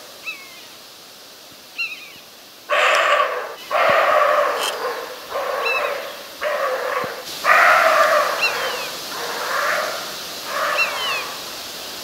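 European roe deer barking: a series of short, hoarse barks about once a second, starting about three seconds in. This is the roe deer's alarm bark, which it gives when disturbed, as when one barks at a tent in the woods at night.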